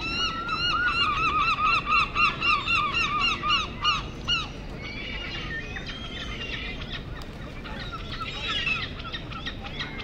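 A flock of gulls calling: a loud, fast run of repeated yelping calls, several a second, for the first four seconds or so, then fainter scattered calls from several birds.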